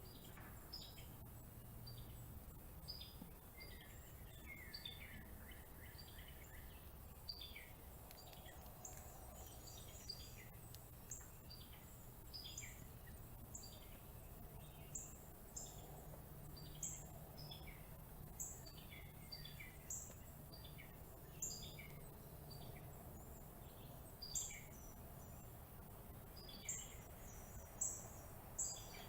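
Small birds chirping: many short, high chirps, a few every second, growing louder near the end, over a low steady hum.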